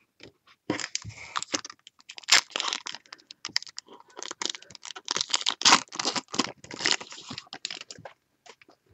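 Shiny foil wrapper of a 2015 Topps Finest trading-card pack crinkling and tearing as it is opened, with cards being handled, in a dense run of short crackles.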